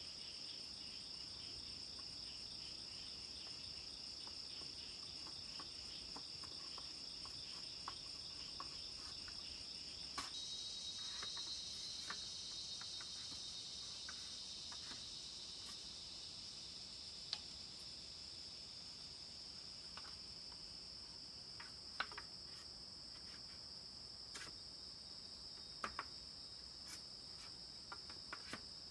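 Steady, high-pitched insect chorus of crickets or cicadas, with scattered light clicks and taps from bamboo being worked by hand, a few sharper ones in the second half.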